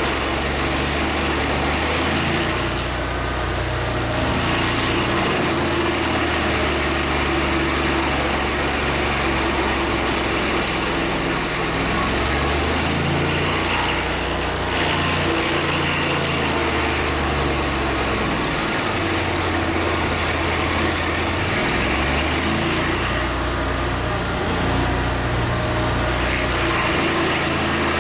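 A small engine running steadily without a break, its low note stepping up and down every few seconds.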